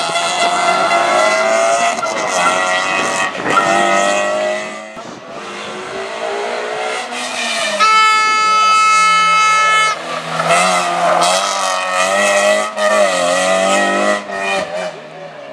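Toyota Yaris Cup rally cars driving hard past on a tarmac stage, engines revving up and down through gear changes, with a few shifts from one pass to the next. Near the middle, a steady high note is held for about two seconds.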